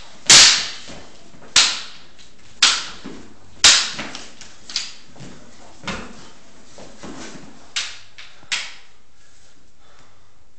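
Wooden sparring sticks clacking together in a string of sharp strikes, about four loud ones in the first four seconds, then softer, sparser knocks. Each hit rings briefly in the room.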